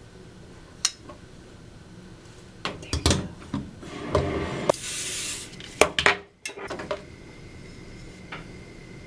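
Clicks and clatter of styling tools and a spray bottle being handled, with a spray burst of about a second near the middle from a bottle of Cibu Pho Finish styling spray being misted onto a section of hair.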